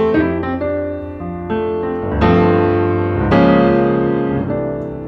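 Background music: slow piano chords, each struck and left to fade, with fresh chords coming in about every second.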